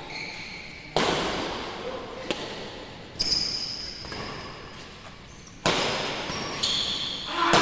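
Badminton rallies: about six sharp racket hits on a shuttlecock at uneven intervals, each ringing out in a large echoing hall, with short high squeaks in between.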